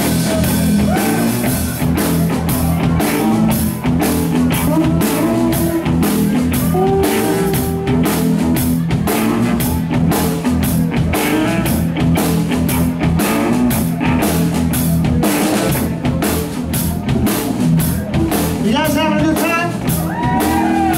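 Live rock band playing a steady blues-rock groove: electric guitars over a drum kit keeping a steady beat.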